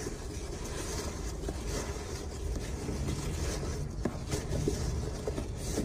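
Steady low outdoor background rumble, with a few faint clicks in the second half.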